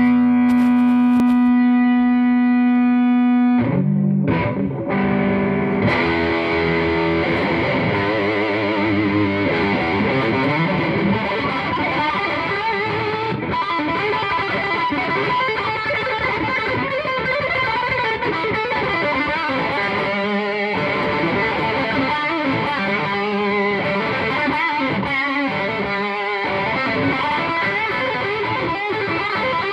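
Electric guitar played through distortion. It opens on one long held note, then from about six seconds in goes into fast lead playing with rapid runs of notes.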